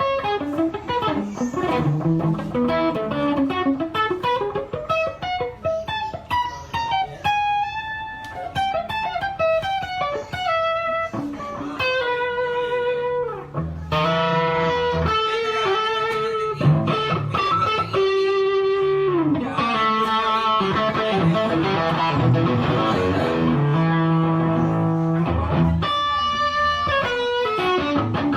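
Stratocaster-style electric guitar played in a sound check: a melodic run of single notes and some held notes, with a few notes bent or slid in pitch.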